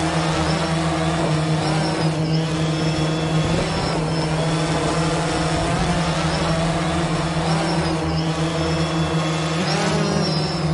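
Multirotor drone motors and propellers buzzing in flight with a steady whine. The pitch rises briefly near the end.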